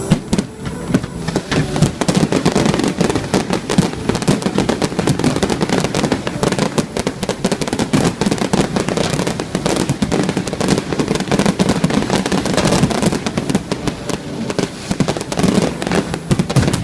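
A dense fireworks barrage: sharp bangs and crackles of bursting shells following one another several times a second.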